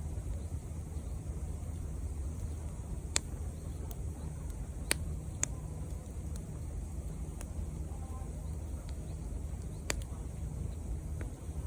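Wood campfire crackling: a few sharp pops spread out over a steady low rumble.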